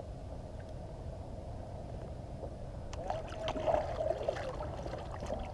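Steady low rumble of wind and water on the microphone aboard a kayak. About three seconds in, a cluster of short clicks and knocks from handling gear or a fish begins.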